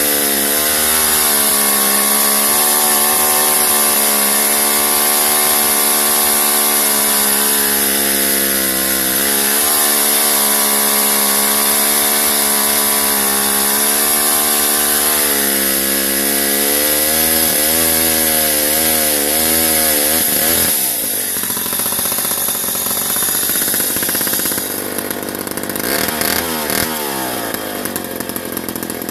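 1958 Jobu 93 two-stroke chainsaw with a diaphragm carburettor cutting through a log under load, its pitch sagging and wavering as the chain bites. About two-thirds of the way in it comes out of the cut and the sound drops abruptly; near the end it is revved up and down briefly and then runs at a lower, idling pitch.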